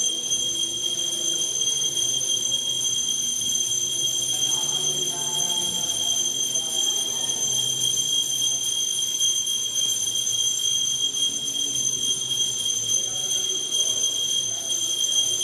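A steady high-pitched ringing tone, unbroken throughout, over faint singing or voices.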